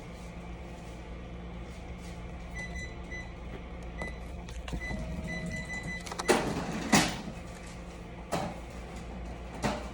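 A steady low hum with four sharp clicks or knocks from about six seconds in, the first two the loudest. A faint thin whine comes and goes before them.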